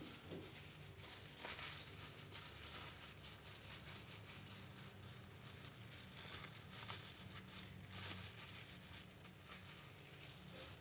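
Faint rustling and crinkling of a banana leaf and a plastic food glove being handled as sticky rice is packed into a leaf cone, over a steady low hum.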